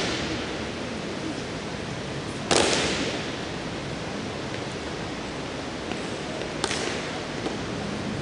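Drill team's boots stamping in unison on a hard floor: one loud stamp about two and a half seconds in that echoes around the empty arena, and a lighter stamp near the end, over a steady background hiss.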